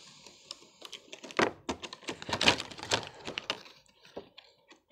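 Clear plastic retail box being pried open by hand: a quick irregular run of plastic clicks, cracks and crinkles, thickest from about one to three and a half seconds in.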